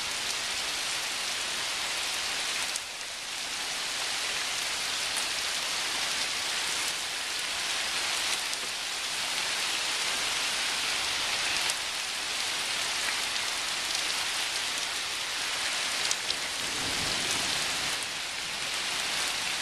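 Heavy rain falling steadily during a thunderstorm, an even hiss of drops hitting surfaces with scattered small ticks.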